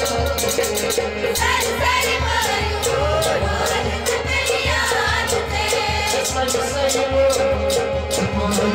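Live Kashmiri rouf folk music: singing over a quick, steady percussion beat.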